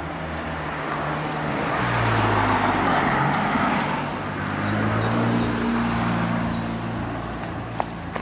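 A motor vehicle driving past, its low engine hum and road noise swelling about two seconds in, easing, swelling again, then fading.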